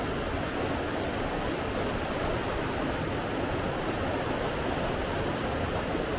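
Rushing water: a steady, even noise without distinct splashes or other events.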